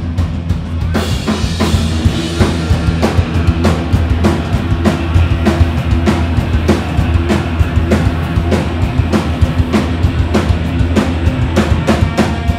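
Live rock band playing on a club stage: a drum kit beats out an even rhythm over a strong bass line and electric guitars, with cymbals brightening the sound about a second in.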